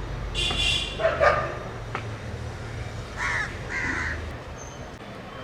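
About four short animal calls, two in the first second and a half and two more around three to four seconds in, over a low steady rumble that drops away about four seconds in.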